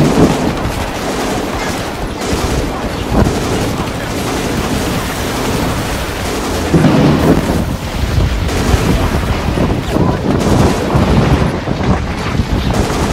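Battle sound effects: heavy continuous gunfire and explosions, with louder booms at the start and about seven seconds in.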